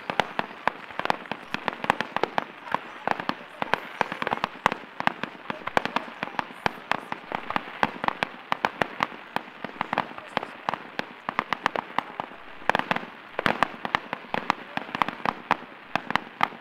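Aerial fireworks bursting: a dense, irregular run of sharp pops and crackles, several a second, with a louder flurry about thirteen seconds in.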